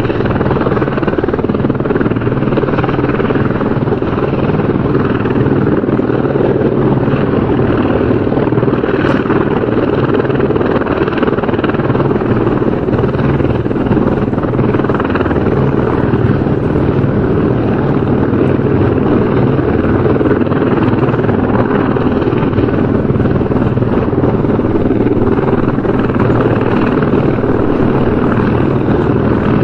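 Helicopter rotor and engine running steadily at an unchanging level.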